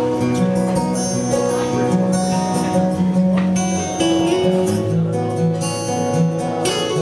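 Acoustic guitar played live, strummed chords and held notes in an instrumental passage without singing.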